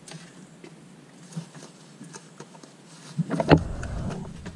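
Faint clicks and rubbing of hands working a rubber drive belt around the crankshaft pulley of a Toyota Camry's engine, then one loud thump about three and a half seconds in.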